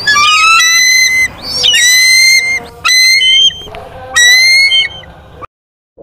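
Bald eagle calling: about four high whistled calls in a row, each a run of piping notes, some sliding in pitch. The sound cuts off suddenly shortly before the end.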